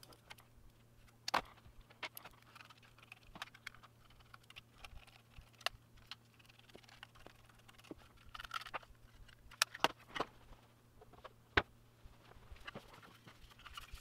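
Scattered light metallic clicks and taps from a precision screwdriver and a metal optical-bay drive caddy being handled as a 2.5-inch SSD is unscrewed and lifted out, with a few sharper clicks among them.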